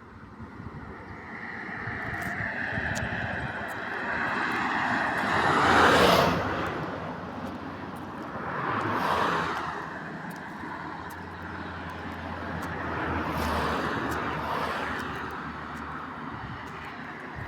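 Road traffic: several vehicles go past one after another, each swelling in a rush of noise and fading again, the loudest about six seconds in.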